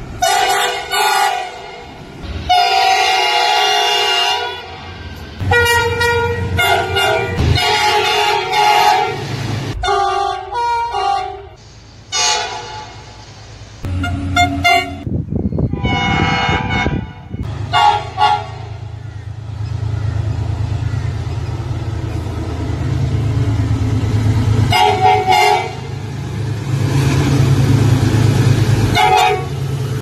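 2800 class diesel locomotive horns sounding a chord of several notes in a string of blasts, some long and some short. Past the middle a locomotive's diesel engine rumbles steadily as it approaches and passes, with a few more short horn blasts.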